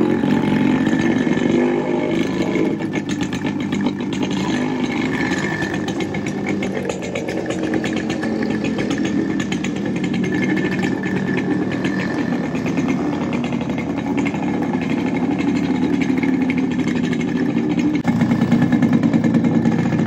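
Two Yamaha two-stroke single-cylinder motorcycles, an RX100 and an RX135, running while being ridden, with a rapid stream of exhaust pulses.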